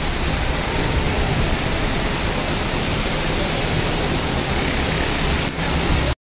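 Heavy downpour: a loud, steady, dense hiss of torrential rain falling on the street and roofs, which cuts off abruptly near the end.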